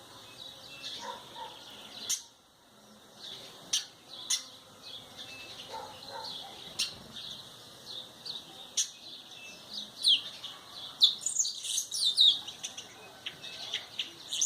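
Small songbirds giving short, sharp, high chirps every second or two, then a quick flurry of descending chirps about ten to twelve seconds in.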